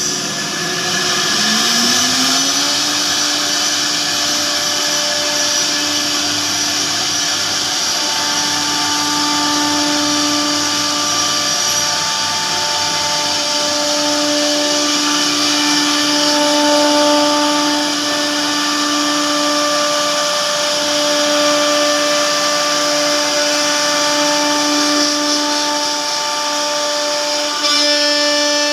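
CNC router spindle winding up to speed in the first couple of seconds, then running with a steady high whine and a hiss of cutting as it carves a WPC (wood-plastic composite) door panel.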